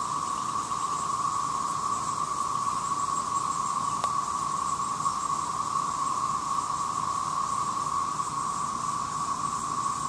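Chorus of Brood XIX 13-year periodical cicadas: a steady, unbroken drone that does not rise or fall.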